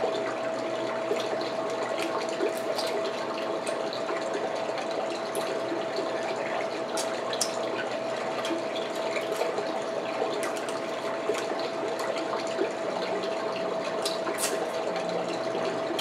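Steady background hiss with a constant hum-like tone, over which come scattered small clicks and cracks of king crab legs being eaten.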